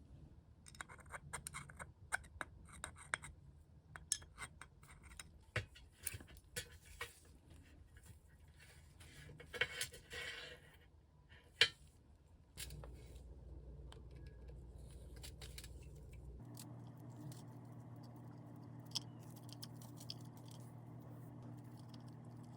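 Small metal parts and hand tools clicking and clinking as they are handled, for about twelve seconds. Then a steady low hum takes over, changing pitch character about four seconds later.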